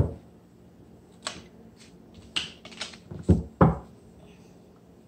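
A deck of tarot cards being handled: a sharp knock at the start, a few light clicks from the cards, then two heavier knocks close together a little over three seconds in.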